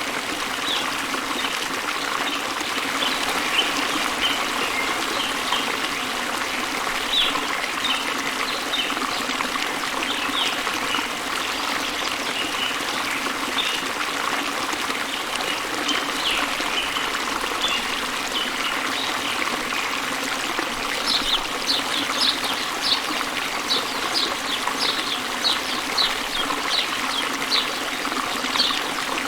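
Small waterfall pouring into a river, a steady rush of falling and running water. Birds chirp over it, and from about two-thirds of the way through one bird repeats a short high call again and again.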